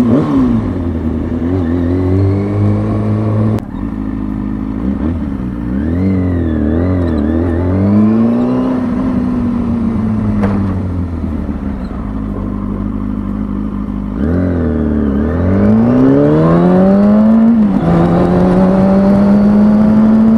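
Inline-four engine of a 2003 Kawasaki ZX-6R 636 sportbike being ridden, its revs rising and falling with the throttle. About three-quarters of the way through it pulls hard in one long rising sweep, then drops sharply at a gear change and holds steady. Wind rumbles on the microphone underneath.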